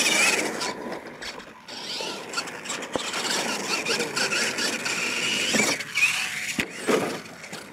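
RC monster truck's motor whining, rising and falling in pitch with the throttle as it drives and jumps, with a few sharp knocks from the truck hitting ramps or the ground.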